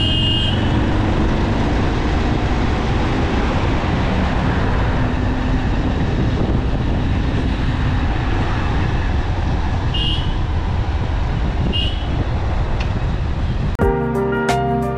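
Steady rush of wind and road noise with the engine of a motorcycle riding along a highway, with two short beeps about ten and twelve seconds in. Near the end, soft piano music comes in.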